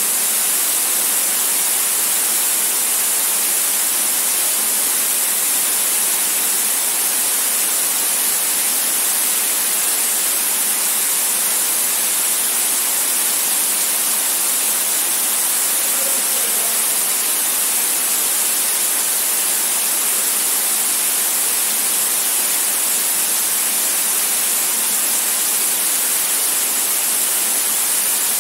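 Steady rush of a waterfall pouring into a rock cave, heard as an even, unbroken hiss that is strongest in the high end.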